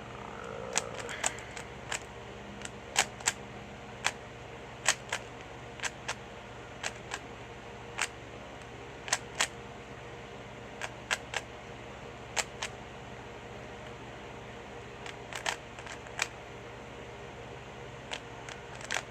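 3x3 Rubik's cube being turned fast: sharp plastic clicks of the layers snapping round, coming irregularly, singly and in quick clusters, over a steady low hum.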